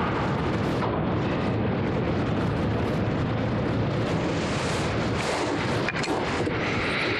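A steady, even rushing noise with no pitch in it, as loud as the nearby speech and unchanging throughout. One or two faint clicks come about six seconds in.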